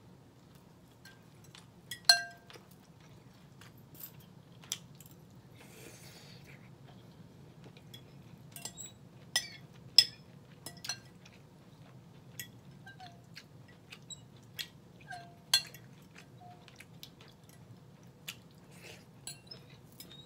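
Metal fork clinking and scraping against a glass bowl of sautéed cabbage in broth, with close-up chewing and eating sounds in between. A handful of sharp clinks stand out, about four of them much louder than the rest.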